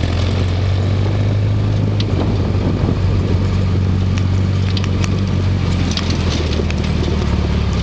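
Off-road vehicle's engine running steadily under load in second gear, with scattered small clicks and rattles over the noise of driving on a rough dirt trail.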